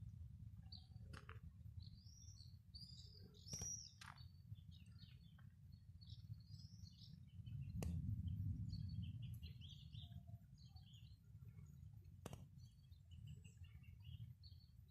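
Small birds chirping and twittering in short calls, over a low rumble that swells for a couple of seconds about halfway through, with a few sharp clicks.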